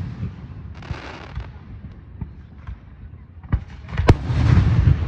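Aerial fireworks going off: a hissing, crackling burst about a second in and a few faint pops, then two sharp bangs about three and a half and four seconds in. The second bang is followed by the loudest stretch, a long rolling rumble.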